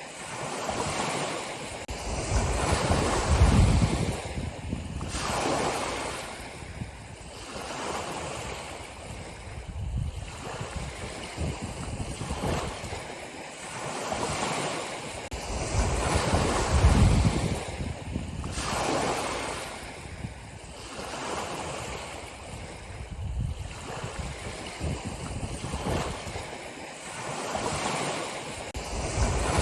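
Ocean waves breaking and washing on a shore, swelling and falling back every few seconds, with the biggest surges about 3 seconds in and again near the middle.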